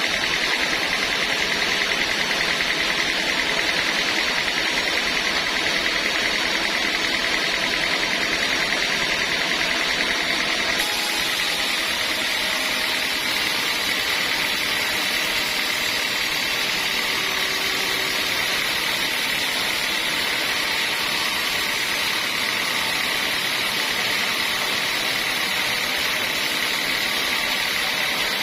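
Sawmill saw running steadily with a constant high-pitched whine over a dense mechanical noise; the sound shifts and grows brighter about eleven seconds in.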